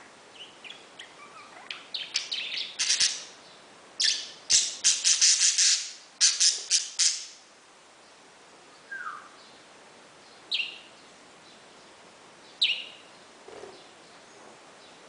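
Pet parakeet chirping: a quick run of loud, sharp chirps in the first half, then three single falling calls spaced a couple of seconds apart.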